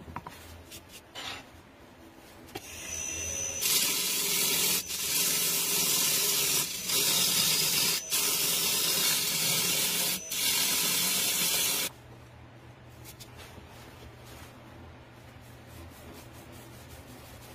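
Turning tool working a spinning wooden vase on a wood lathe: a loud steady hiss from about four seconds in to about twelve, broken by four brief gaps, over the lathe motor's low hum, which carries on alone afterwards.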